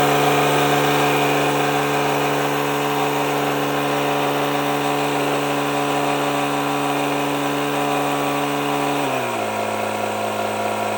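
Etenwolf portable air compressor running steadily as it pumps up an e-bike tyre, a loud motor hum that drops to a lower pitch about nine seconds in.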